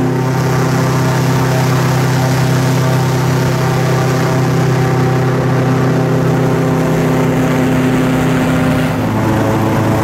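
Airboat's engine and large air propeller running at a steady cruising speed, a loud, even drone. Near the end the pitch shifts and then climbs as the speed changes.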